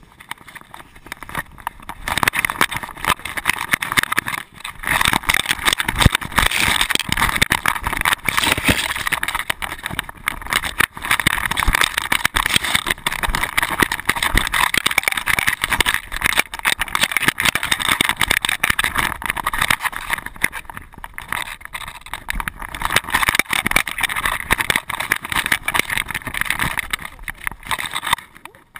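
A loosely strapped GoPro rubbing and knocking against a dog's fur and body as the dog moves, a dense run of rapid scrapes and clicks that eases briefly a few times.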